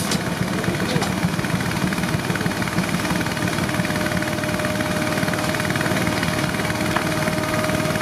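Frick circular sawmill driven by a Case steam traction engine, running steadily between cuts: a dense, even machinery rumble with a fast low flutter and a steady high tone over it.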